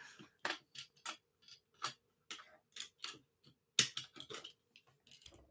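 Faint, irregular light clicks of keys being tapped on a computer keyboard.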